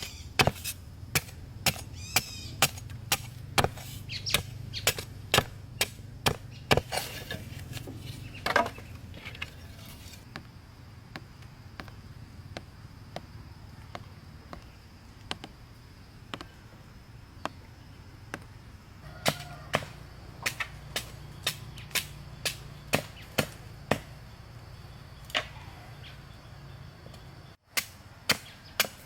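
Repeated sharp chopping strokes of a blade on wood, about one to two a second, thinning out for a while in the middle before picking up again.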